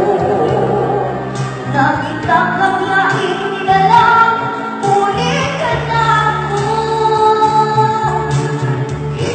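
A singer holding long sung notes over instrumental backing music.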